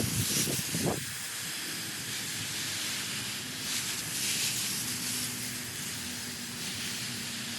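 Water spraying from a garden hose onto the vegetable beds: a steady hiss that swells and eases as the spray is swept across. There are a couple of brief low rumbles in the first second.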